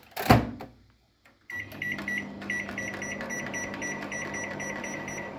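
Microwave oven door shut with a sharp knock, then about a second and a half later the oven starts running with a steady hum, over which a rapid, even run of short high beeps sounds, about four a second, as the cooking time is set.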